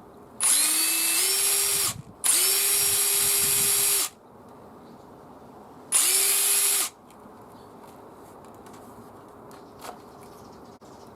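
HiKOKI WH18DDL2 cordless impact driver spinning free without load in three bursts, the first stepping up in speed about a second in, the last short; a steady motor whine with a high-pitched ring. This is the abnormal noise that its bearings are being replaced to cure.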